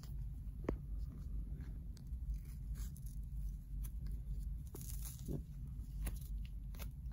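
White athletic tape being peeled off its roll and wrapped around an ankle as a heel lock, with a few short crackles and snaps of the tape unwinding. A steady low room hum runs underneath.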